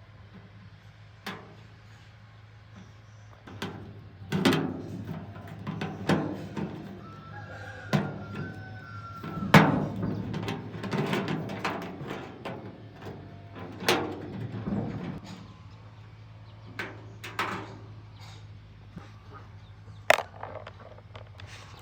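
Irregular sharp knocks and clanks of parts and tools being handled during repair work, over a steady low hum.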